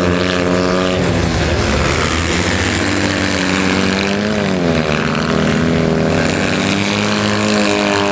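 Motor vehicle engines running steadily, the pitch dipping and coming back up about halfway through.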